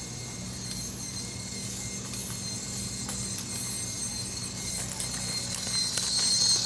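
Tiny brushless outrunner motor and gear drivetrain of an Axial SCX24 micro crawler running at full throttle, a steady high whine over a low hum with a few light clicks; the whine grows louder near the end.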